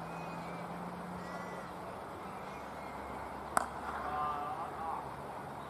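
A cricket bat strikes the ball once about three and a half seconds in, a single sharp crack. Just after it comes about a second of cawing, like a crow.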